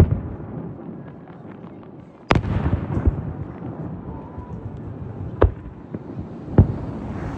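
Firework shells bursting: four sharp booms a second or more apart. The second, about two seconds in, is followed by a long rolling rumble and crackle that carries through the rest.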